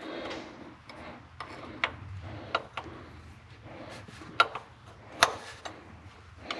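Hand tools clicking and tapping against metal fittings while a fuel line is worked on, a handful of sharp irregular ticks over soft handling rustle, the loudest two a little past the middle.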